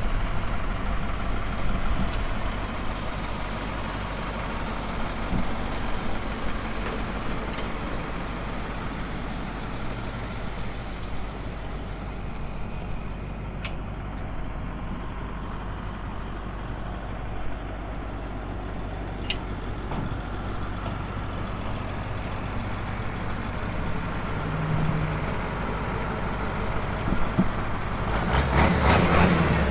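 Large diesel farm machine engine running steadily, with a louder rush of noise near the end.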